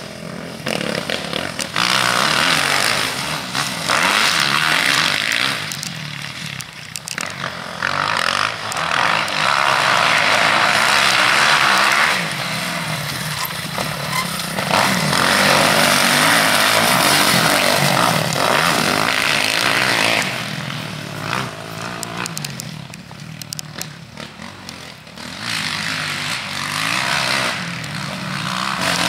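Motocross bike engine riding the track, revving hard and easing off several times, so the noise swells and drops in long surges.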